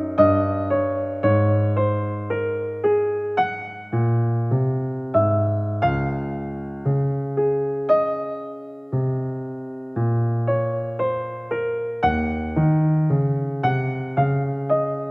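Background piano music, a slow melody of single struck notes over low bass notes, each note fading after it is played.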